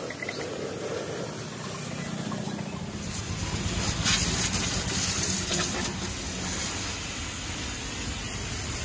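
High-pressure washer jet spraying water onto a tractor tyre: a steady hiss that grows louder about three seconds in, over the steady low hum of the engine driving the washer pump.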